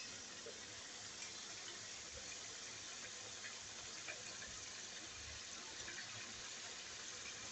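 Oil sizzling and bubbling steadily around maida dough cups deep-frying on steel glasses in a kadai over a low flame, with a few small crackles.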